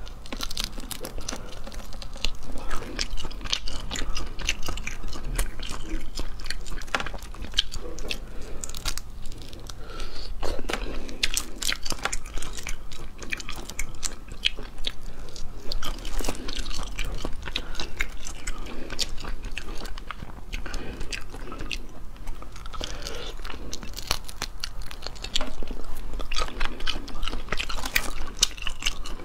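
Close-miked eating of spicy crayfish tails: many sharp clicks and crackles from the shells being cracked and peeled by hand, mixed with biting and wet chewing of the meat. The clicking gets busier near the end.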